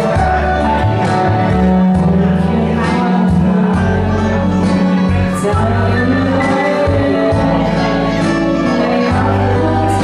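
A woman singing into a microphone over a backing track with bass and a steady beat.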